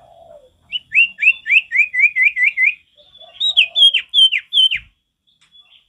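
Common iora singing: a quick run of about eight short down-slurred whistled notes, then after a brief pause five longer, higher notes that each fall steeply.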